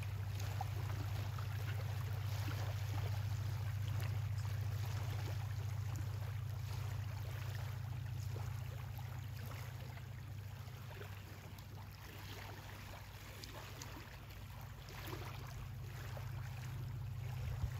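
Steady low hum of a boat engine running, under a faint hiss of wind and water.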